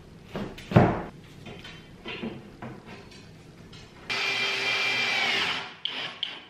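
A sharp knock and a few light taps as a metal rail is fitted onto a flat-pack cabinet. Then a 12 V brushless cordless drill drives a screw for about a second and a half, its motor whine dropping as it stops, followed by a few small clicks.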